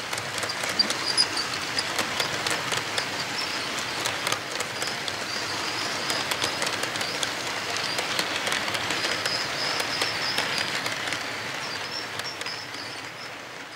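HO-scale model freight cars rolling past on their track: a steady rolling rumble with quick clicks of wheels over the rail joints, easing off near the end as the last cars go by. A high, pulsing chirping runs over it throughout.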